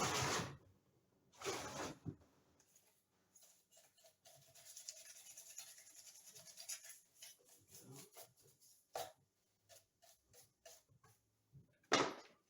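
A trigger spray bottle squirting hot water onto a bronze sculpture's base in short hissing bursts. In between, a stiff cut-down chip brush scrubs over the metal with a fine, rapid scratching, followed by scattered small clicks and taps.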